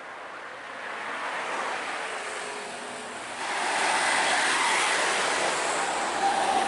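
Road traffic with a bus passing close: engine and tyre noise, louder from about halfway through.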